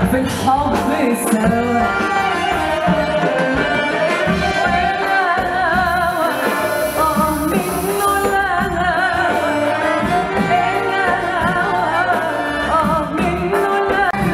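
A woman sings an ornamented Arabic tarab melody into a microphone, her line wavering and turning, backed by a live band with keyboard and accordion.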